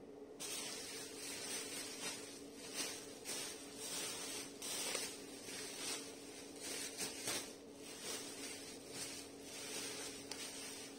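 Black plastic bubble-wrap sheeting rustling and crinkling in irregular bursts as it is handled and pressed around a wrapped package.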